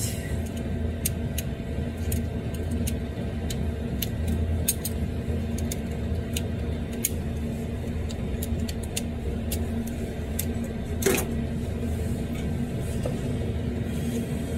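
Light clicks and ticks of hands working the red plastic wiring connector in the engine bay, with one louder click about eleven seconds in, over a steady low hum.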